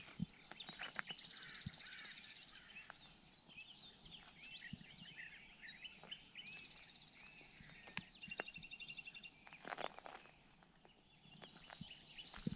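Songbirds singing: rapid trills and short warbling phrases, with a few scattered footsteps crunching on a gravel track.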